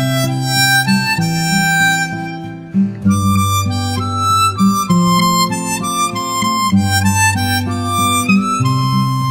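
Background music: a melody of held, reedy notes over a steady bass line, with a brief break about three seconds in.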